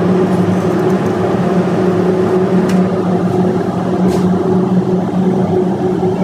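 Steady, loud drone of running diesel machinery in an engine room, a constant low hum with an even rumble and no change in speed.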